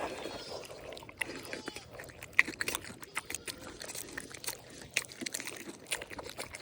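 Pigs eating a lunch of vegetables, fruit and eggs: irregular crunching, smacking and chewing clicks.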